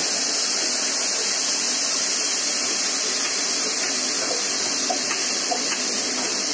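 Marinated chicken sizzling in hot oil and butter in a kadhai as it is tipped in from a steel bowl: a loud, steady hiss, with a few light clinks of the spatula against the metal.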